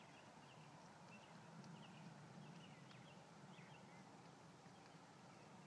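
Near silence, with faint, scattered short bird chirps.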